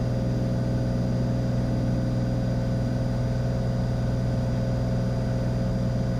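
Cessna 182 Skylane's single piston engine and propeller droning steadily in flight, one even pitch with no change in power.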